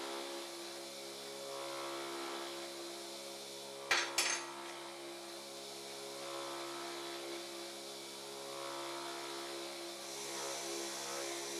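Bench grinder motor running steadily with its wire wheel scrubbing rust off a metal rod and coiled spring held against it. Two sharp knocks come about four seconds in.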